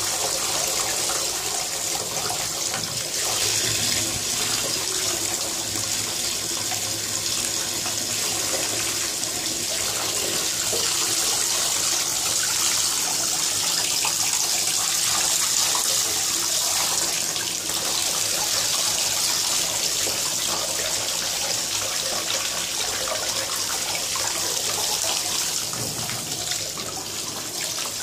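Bath tap running steadily, the stream splashing into a bathtub filling with foamy water.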